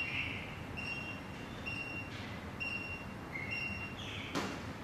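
Desktop 2D barcode scanner beeping as codes are read, a short high beep about once a second, each the scanner's signal of a successful read. A short knock near the end.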